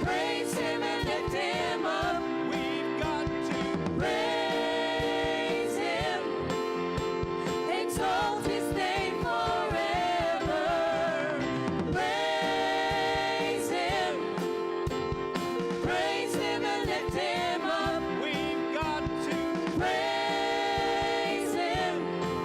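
Congregational worship song: voices singing together with steady band accompaniment, with sustained held notes.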